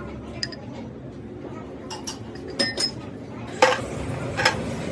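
Several sharp metallic clinks of steel parts or tools being handled and set down, the loudest about three and a half seconds in.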